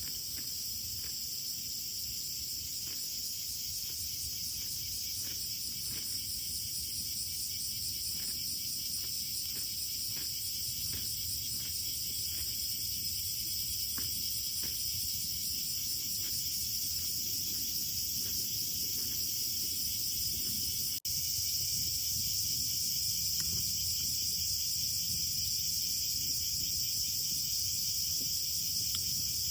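Steady, dense chorus of crickets and other insects, with faint scattered crackles underneath and a momentary break about two-thirds of the way through.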